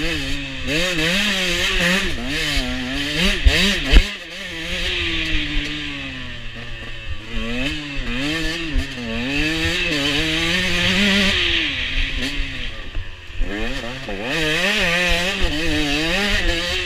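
KTM 125 EXC's two-stroke single-cylinder engine ridden hard on dirt, its pitch rising and falling constantly as the throttle opens and closes. A loud knock about four seconds in, after which the engine note drops and then builds again.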